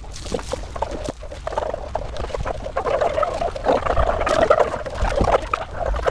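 A dog being bathed: water poured over it and splashing on a metal grate table, then hands scrubbing the wet, soapy coat in a dense, busy rubbing and squelching sound that grows louder through the middle.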